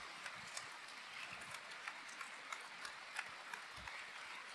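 Light, irregular clicking, a few clicks a second, like hoofbeats, with a soft low thump near the end.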